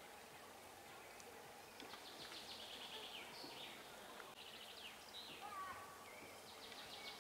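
Quiet woodland birdsong: small birds chirping and singing quick trilled phrases, about three times, over faint distant voices of people.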